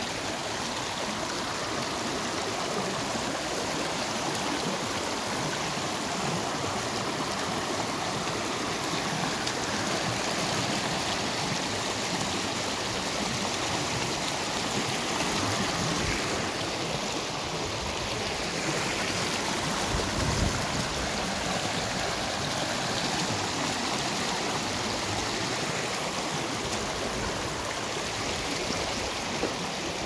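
Small forest brook running and rippling steadily over its bed, with a brief low thump about two-thirds of the way in.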